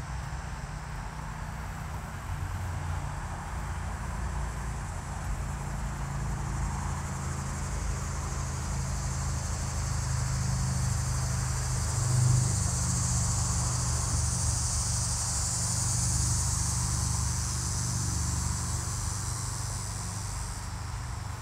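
A steady, high-pitched insect chorus that grows louder about halfway through and cuts off suddenly near the end, over a constant low rumble.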